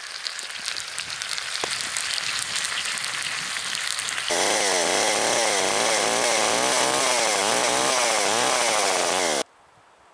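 Food sizzling and crackling in a cast iron pot over hot coals. About four seconds in it gives way abruptly to an old Craftsman two-stroke chainsaw running, its engine speed rising and falling over and over, which cuts off suddenly near the end.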